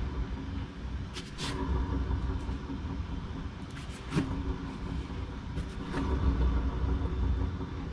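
Nissan Otti heard from inside the cabin while driving: a steady low drone over road noise, the bearing hum that grows louder the faster the car goes, the sign of a worn bearing. A few brief clicks or knocks sound over it.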